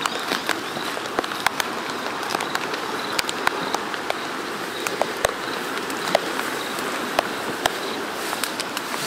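Steady rain hiss with many sharp, irregular taps of drops landing close by, over the rush of a flooded creek.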